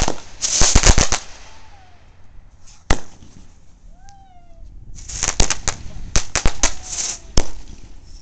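Consumer aerial fireworks going off: a quick cluster of sharp bangs and crackles in the first second, a single bang about three seconds in, then a dense run of cracking reports from about five to seven and a half seconds.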